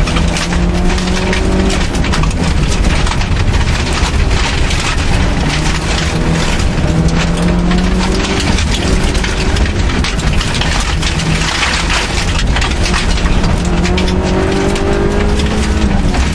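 Suzuki Swift rally car engine heard from inside the cabin, driven hard on a gravel stage. The engine pitch climbs in long rises and drops back at each gear change, over constant gravel noise and the ticking of stones against the car.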